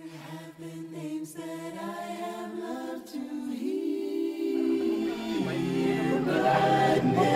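Background music: an a cappella choir singing slow, held chords, growing louder as lower voices join about five seconds in.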